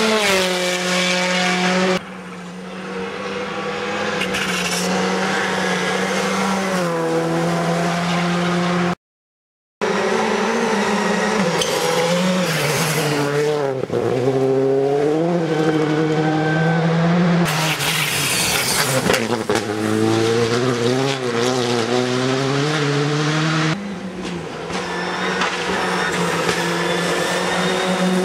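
Rally cars passing at speed one after another, engines revving high and dropping with each gearshift. The sound cuts out completely for under a second about nine seconds in.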